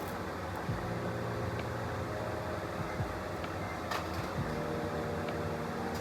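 Stick-welding arc burning a 6010 rod on a pipe root pass: a steady hiss with scattered clicks, over a constant machine hum.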